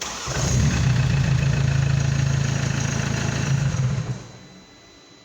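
Mercedes W212 hybrid powertrain on a start attempt: the engine turns over with a loud, steady hum for about four seconds, then stops just after four seconds in.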